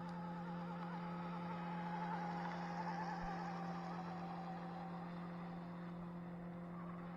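Electric motor of a fast RC boat whining at a distance, its pitch wavering as the hull bounces and slowly falling as it runs away, over a steady low hum.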